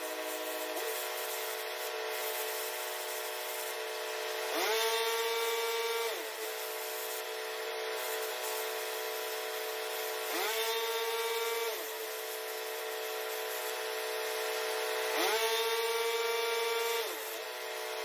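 An engine running steadily, its pitch rising three times, each time holding for about a second and a half and then falling back, like an engine throttling up under load and returning to idle.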